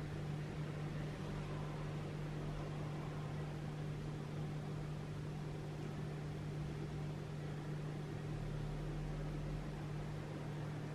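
Steady low hum with an even hiss underneath, constant and unchanging.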